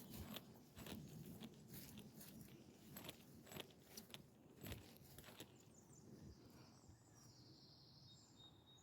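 Faint, irregular crunching and scraping steps, like footsteps on a woodland path, fading toward the end, with a faint high-pitched sound in the last couple of seconds.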